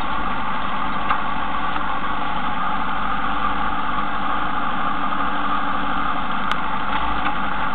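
Motorcycle riding, heard from a camera mounted on a motorcycle: steady engine sound under a constant rushing noise that holds level without revving up or down.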